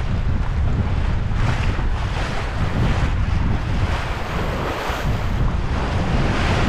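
Wind buffeting the microphone as a deep, steady rumble, over water rushing and splashing along a sailboat's hull as it sails through chop. The splashing comes in uneven surges every second or two.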